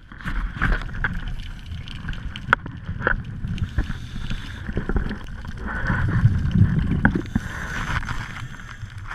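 Underwater sound through a camera housing: muffled rushing and bubbling water, swelling louder past the middle, with a few sharp clicks.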